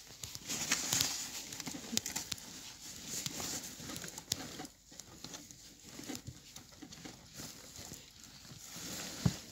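Handling noise from a phone being carried against clothing: rubbing and rustling, broken by many small knocks and taps.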